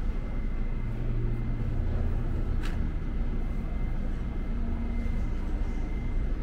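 Steady low rumble of a New York City subway station, with a thin steady whine above it and one brief rising squeak about two and a half seconds in.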